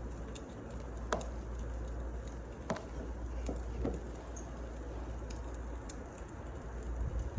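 Wood fire burning: a steady hiss and low rumble with a few sharp crackles and pops.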